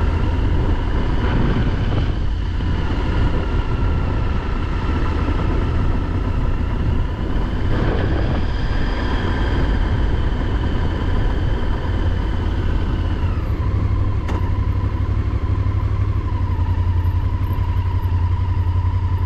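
Motorcycle engine running steadily under way, heard from the rider's seat with a steady rush of wind noise. About two-thirds of the way through its pitch slides down as the bike slows, and it then runs on at the lower speed with a deeper rumble.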